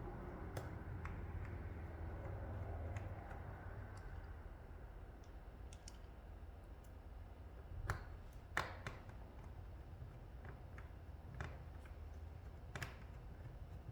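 Scattered light clicks and taps of a plastic laptop case being handled and closed up during reassembly, with a few sharper clicks about eight seconds in and again near the end.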